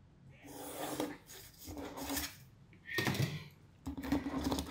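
A cardboard pattern sheet and plastic ruler being handled and slid on a plastic cutting mat: four short scraping, rustling sounds, each about half a second long.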